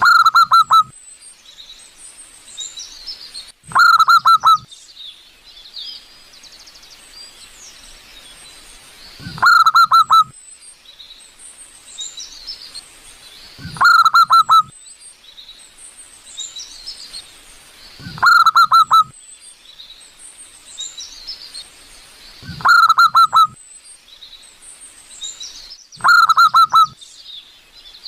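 Zebra dove (perkutut) singing: a short, loud rippling phrase of quick cooing notes, repeated seven times about every four seconds. Small birds chirp faintly in the gaps between phrases.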